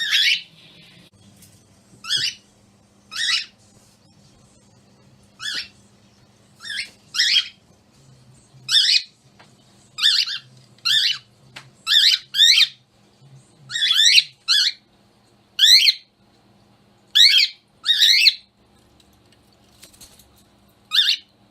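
Pet cockatiel screeching: short, shrill calls repeated about once a second, often in quick pairs.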